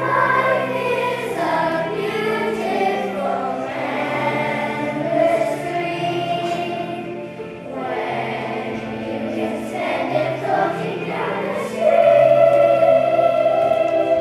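Children's choir singing a song together, swelling to a louder held note near the end.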